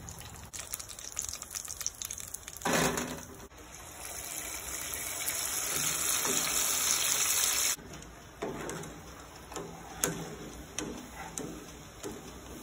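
Cassava deep-frying in a pot of hot oil, the oil sizzling. A sudden loud burst comes about three seconds in, then a hiss builds for a few seconds and cuts off abruptly, leaving quieter bubbling with scattered pops.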